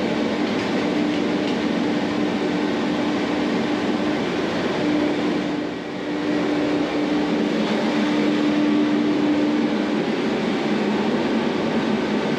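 Workshop machinery running with a steady drone and a constant hum that drops out briefly a couple of times.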